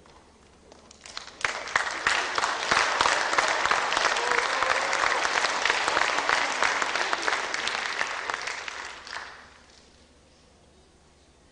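Applause from many people, building quickly about a second in, holding dense and steady, then dying away near the end.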